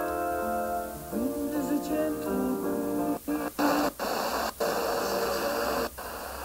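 FM radio station playing music through a Sangean portable receiver's speaker. About three seconds in, as the radio is stepped up the dial, the audio briefly drops out several times, and hiss with a weak, noisy signal fills the gaps between stations.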